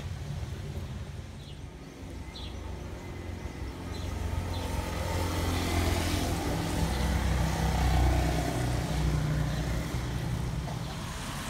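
Motor scooter passing on a wet road: the engine and the hiss of tyres on wet tarmac build up from about four seconds in, are loudest a little after the middle, then fade.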